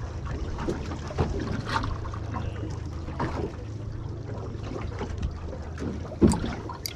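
Water slapping and trickling against the hull of a small fishing boat over a steady low hum, with a sharp knock about six seconds in.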